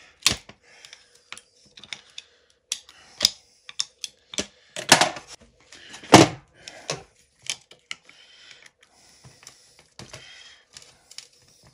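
Hand tools clicking, tapping and scraping against the shaft and bearing end of a small electric motor as it is pried apart, with irregular metal clicks and two louder clanks about five and six seconds in.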